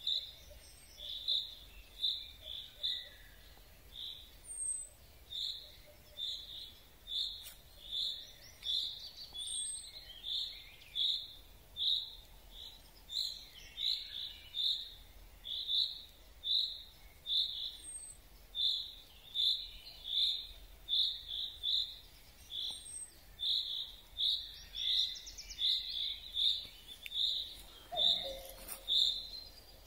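Common chaffinch repeating one short call note over and over, about one to two a second. This less familiar call of the chaffinch is easily taken for another species.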